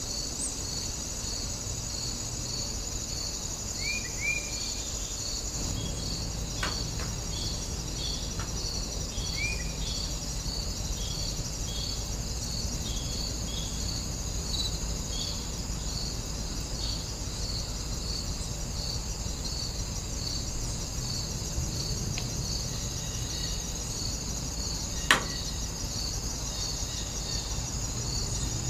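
Steady chorus of crickets and other insects: a continuous high trill with a regular chirp pulsing over it a little more than once a second. A few short high chirps come about four and nine seconds in, and one sharp click sounds near the end.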